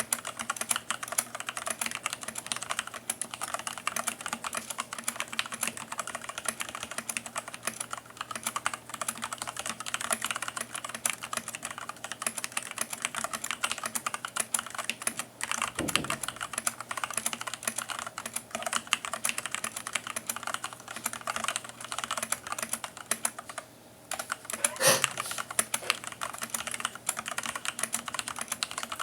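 Continuous fast typing on a mechanical keyboard with linear Kailh Black switches on 35g springs and POM keycaps: a dense, irregular run of key clacks, with a brief lull near the end and an occasional deeper thud.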